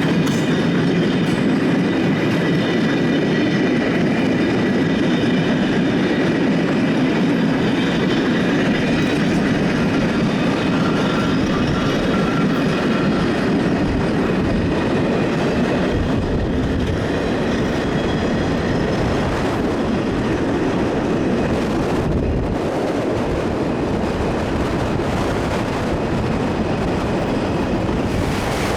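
A train running on the track: a steady rumble of wheels on rail with clickety-clack, and a faint high steady whine above it.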